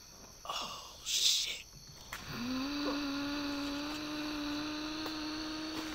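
A short hissing rush about a second in. About two seconds in, an eerie low hum slides up a little and then holds steady on one note.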